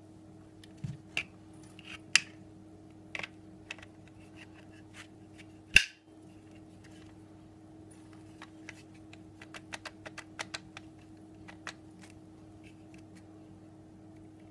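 Plastic clicks and taps from a polymer IPSC holster and a Glock pistol being handled and fitted together. There are a few sharp clicks in the first seconds, the loudest single click about six seconds in, and a run of small quick clicks around ten to twelve seconds in, all over a steady low hum.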